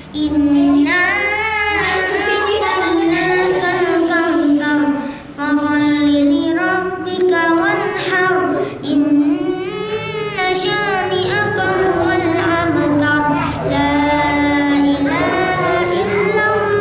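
A young boy chanting the Qur'an in Arabic in a melodic recitation style, with long held notes and ornamented turns, pausing briefly for breath about five and nine seconds in.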